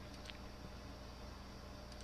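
Two faint computer mouse button clicks, about a second and a half apart, over a steady low hum and hiss.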